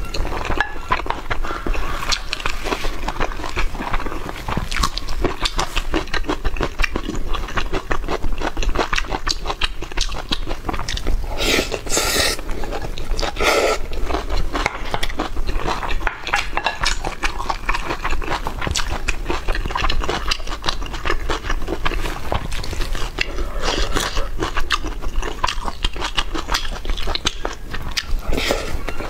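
Close-miked chewing of braised pork belly and rice: a steady run of small crackling clicks and mouth sounds, with a couple of louder bursts near the middle.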